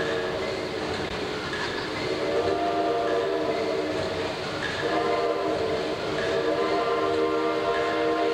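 1913 Allis-Chalmers steam pumping engine running, with a whistling hum in several pitches over mechanical noise that swells and eases in a slow repeating cycle about every second and a half.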